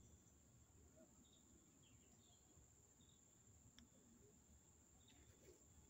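Near silence with faint insect chirping: short high notes every second or so over a steady faint high hum.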